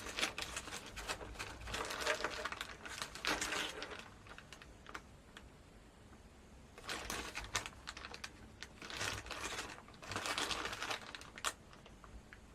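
Small hardware items being handled and sorted: bursts of rustling and crinkling with sharp clicks, busy in the first few seconds, pausing, then coming in short bouts again in the second half.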